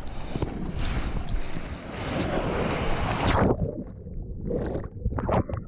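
Sea water splashing and rushing around a waterproof camera held at the surface in the surf. About three and a half seconds in the sound turns suddenly muffled as the camera goes under, followed by a couple of brief splashes.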